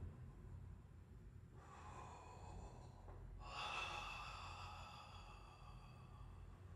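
A man breathing deeply through his open mouth, two faint long breaths, the second longer and louder, starting about three and a half seconds in.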